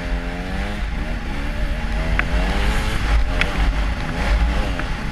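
Snowmobile engine revving up and down as it rides through soft snow, its pitch rising and falling several times, with a couple of sharp ticks partway through.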